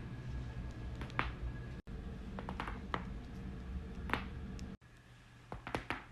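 Joints popping during chiropractic neck adjustments: sharp single cracks and quick clusters of two or three pops, over a low room hum.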